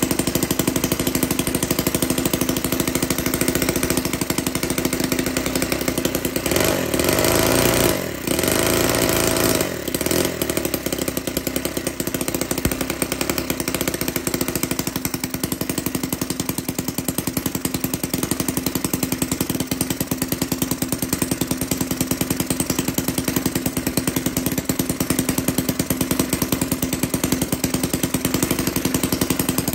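Musa Whippet 10cc four-stroke flathead single-cylinder model boat engine running with a fast, even firing beat. About seven seconds in its note changes and brightens, with two short dips, then it settles back to a steady run.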